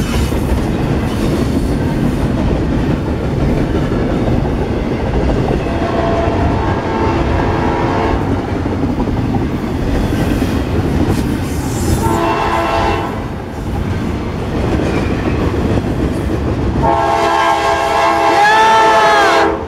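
Air horn of an approaching CSX diesel freight locomotive sounding for a grade crossing: a long blast, a short one, then a louder long one near the end whose pitch bends as it nears. Under it, the steady rumble and wheel clatter of a double-stack intermodal freight train rolling past on the adjacent track.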